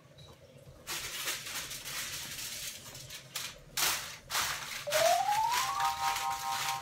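Aluminium foil crinkling and crackling as it is handled and pressed over a baking dish, with a few sharper crackles in the middle. About five seconds in, a tone rises for about a second and then holds as a chord of steady tones.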